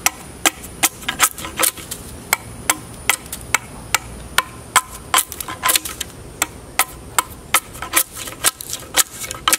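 Hand-forged chopper knife chopping into a wooden bow stave, a quick irregular series of sharp knocks, about three a second, as the blade bites and splits chips off along the grain to rough out the stave.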